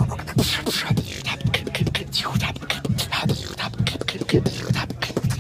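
Beatboxing close to the microphone: a steady rhythm of deep vocal kick-drum hits with sharp snare-like clicks and hissing hi-hat strokes between them.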